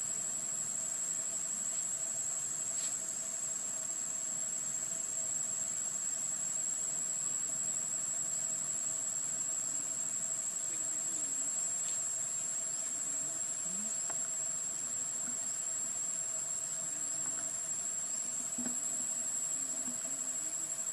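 Insect chorus in forest trees: a steady, high-pitched shrill drone that runs without a break, with a fainter steady lower tone beneath it.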